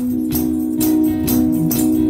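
Live gospel worship music: a tambourine strikes about twice a second over steady held notes.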